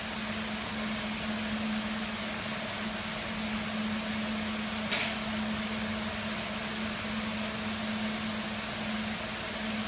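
Jewelry laser welding machine running after power-on: a steady hum with fan-like hiss, as its cooling system runs. A single sharp click about five seconds in.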